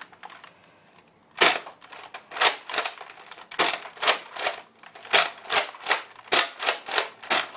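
Nerf Long Strike CS-6 bolt-action dart blaster being fired through its six-dart clip: a rapid series of sharp plastic clacks, about a dozen, as the bolt is worked and the spring plunger fires, starting about a second and a half in.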